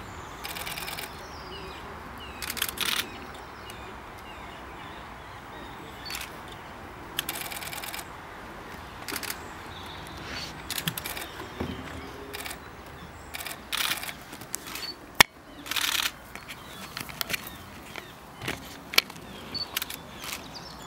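Camera shutters firing again and again in short rapid bursts, with one sharp single click about fifteen seconds in, over steady outdoor background noise.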